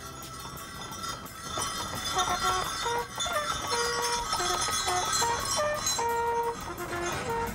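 Post horn blown from the box of a horse-drawn post coach, playing a tune of held notes that begins about two seconds in, over the clip-clop of the team's hooves on the road.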